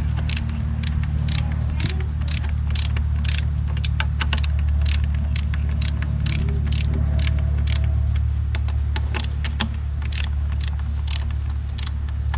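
Hand ratchet clicking steadily, about three clicks a second, as it runs the camshaft bearing cap bolts down on a diesel cylinder head, a turn at a time. A steady low hum runs underneath.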